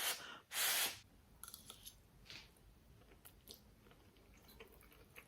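A person eating crispy potato salad: two short breathy bursts in the first second, then faint, scattered crunching as she chews.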